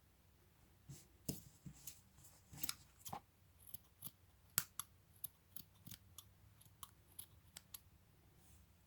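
Scissors snipping cloth: a run of short, sharp cuts at an uneven pace, a few a second, starting about a second in.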